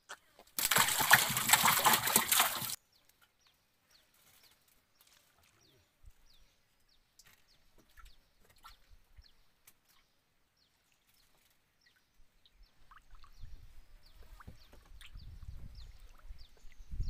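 A loud rush of noise lasting about two seconds near the start, then faint short chirps, and in the last few seconds low sloshing and splashing of river water around a small wooden boat.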